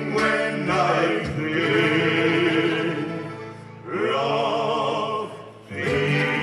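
Live Irish folk band: male voices singing a slow chorus in long held phrases. The drums and bass drop out about a second in, then the full band comes back in with strummed guitar, plucked strings and a steady beat near the end.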